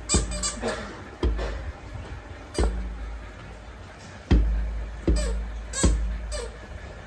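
A rooster pecking at a glass door pane: about six sharp taps on the glass at uneven intervals, each with a dull thud from the door, the loudest a little past the middle.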